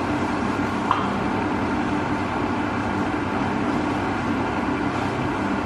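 Steady mechanical whirring hum of a running motor, with a low buzz under it.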